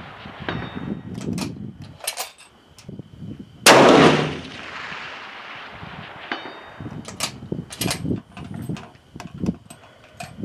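A Savage 10FP-LE bolt-action rifle in .308 Winchester fires once, about four seconds in, and the report rolls away for about two seconds. Sharp metallic clicks of the bolt being worked come between shots. About two and a half seconds after each shot a faint ring comes back, the steel target being hit at long range.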